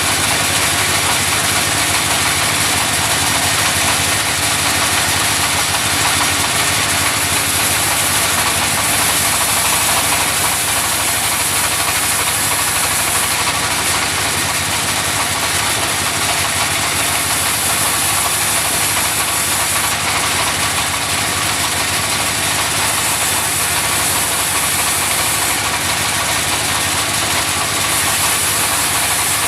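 Sawmill machinery running steadily: a continuous engine-like drone with an even high hiss over it, no breaks or changes.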